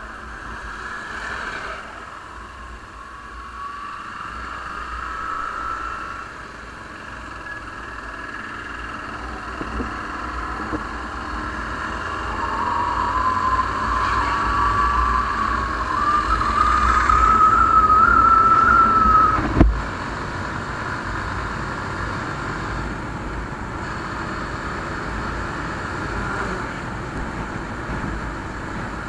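Bajaj Pulsar motorcycle engine accelerating, with wind rush on the microphone. The engine note climbs steadily and grows louder for several seconds past the middle, then drops abruptly about two-thirds of the way through.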